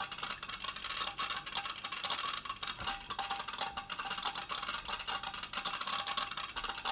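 Powered faulty smart plug chattering: a fast, even, crackling tick with no clear pitch, as its failing power supply cycles and cannot hold its output voltage.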